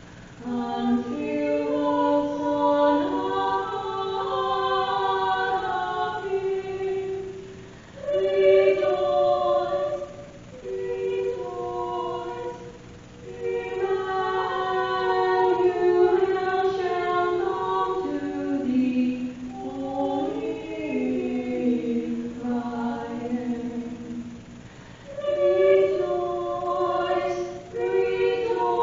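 Church choir singing, in phrases separated by short breaks.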